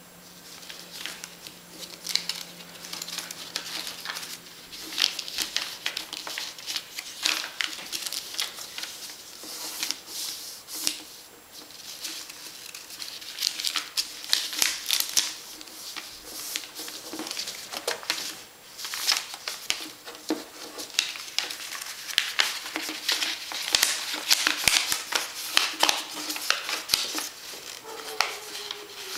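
A sheet of paper being folded and creased by hand: irregular crisp rustling and crinkling as the folds are pressed flat against a table.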